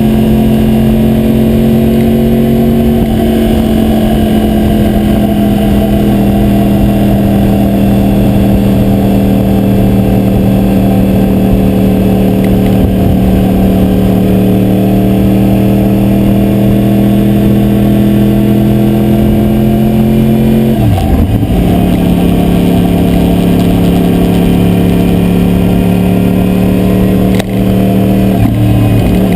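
Yamaha YZF-R1's crossplane inline-four engine running under way, its pitch slowly easing, with gear changes a few seconds in, about two-thirds through and near the end. A rattle from the GoPro's adhesive mount vibrating on the bike runs underneath.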